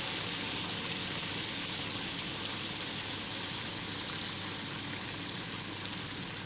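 Pot of rice pilaf, its water just added, bubbling as it comes to the boil: a steady hiss that fades slightly.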